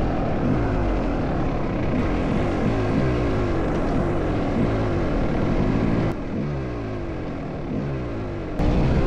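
Kawasaki KX250 dirt bike engine under way, its pitch climbing and falling again and again as it revs up through the gears. It drops abruptly quieter about six seconds in, then comes back loud near the end.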